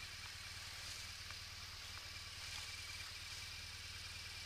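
Motorcycle engine idling steadily, a low even rumble.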